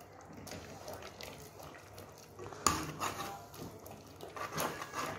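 Steel spoon stirring thick black chickpea masala in ghee inside an aluminium pressure cooker pot, with a few sharp clacks as the spoon knocks against the pot, the loudest a little past halfway.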